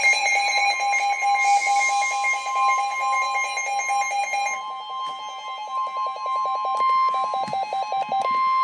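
Emergency alert warning tone: a steady electronic tone near 1 kHz held throughout, with a fast-pulsing electronic beep over it that changes pattern about halfway through and stops shortly before the end.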